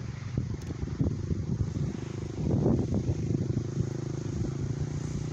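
Dirt bike engine running steadily, coming in about halfway through over a low rumbling background.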